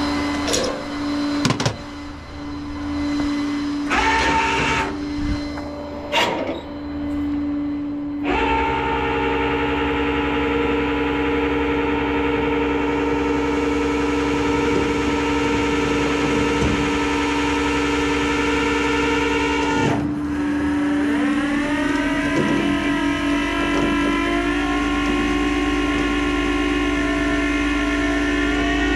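Tow truck engine running with its hydraulic pump engaged, a loud steady mechanical whine over the engine's low drone. The whine sets in about eight seconds in, after a few knocks, cuts out around twenty seconds, then comes back rising in pitch and holds.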